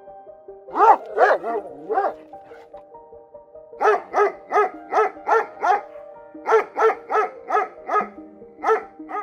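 A dog barking in repeated runs of short, loud barks, about three a second, with brief pauses between runs, over soft background music.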